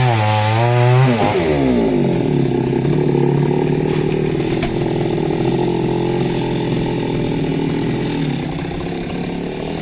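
Chainsaw engine running at high revs under load as it cuts through a coconut palm, the pitch wavering. About a second in, the throttle is let off and the engine winds down to a steady lower-pitched idle.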